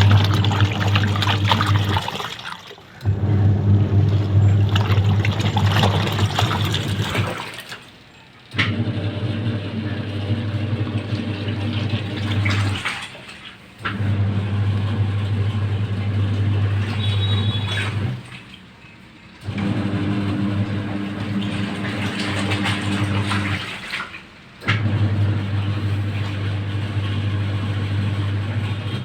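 LG washing machine in its wash cycle: the motor hums and the water churns in runs of about five seconds, stopping briefly between runs as the drum reverses direction.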